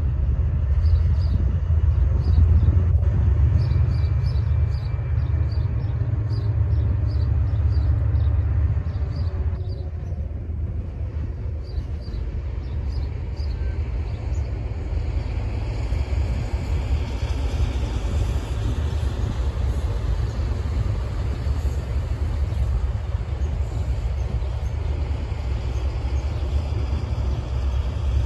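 A pair of Class 68 diesel-electric locomotives approaching slowly at the head of a flask train, their engines running, heavily overlaid by wind buffeting the microphone. The low rumble is loudest for the first nine seconds or so, then eases slightly.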